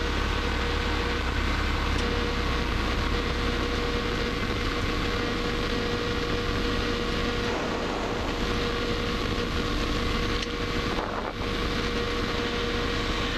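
Cockpit noise of a Robin DR400's piston engine and propeller running at low power while lining up on the runway: a steady drone with a thin steady whine over it.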